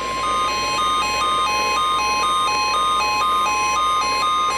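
Steady 1050 Hz NOAA Weather Radio warning alarm tone, the tone that comes before a weather alert message. Over it runs a quick series of alternating higher and lower beeps, a few per second, which stop near the end.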